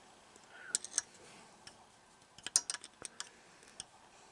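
A few scattered light clicks and taps from handling around the engine: a pair about a second in, then a quicker cluster near the end.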